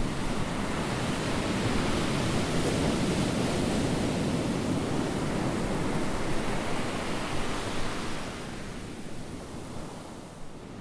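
Ocean surf washing steadily against a rocky shore, a continuous rushing wash that fades down over the last few seconds.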